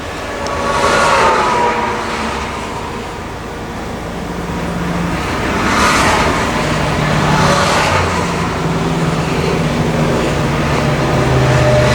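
Highway traffic: vehicles rush past in several swells, about a second in, around six and seven and a half seconds in, and again near the end, over a steady low engine hum.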